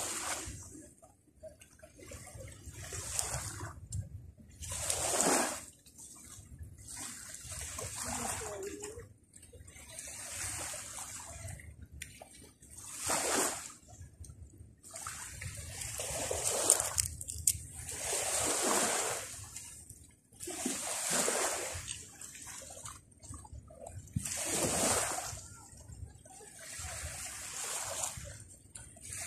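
Small sea waves washing onto the shore, one surge of surf every two to three seconds.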